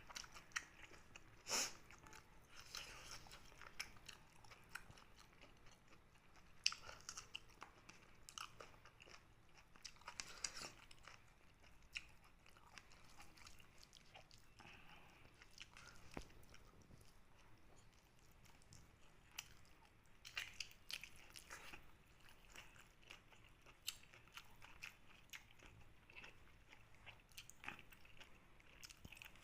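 A person chewing and biting spicy mutton phepra (sheep or goat lung), with soft, wet mouth sounds. There are scattered faint clicks and a few louder crunchy bites, one about a second and a half in and a cluster around twenty seconds in.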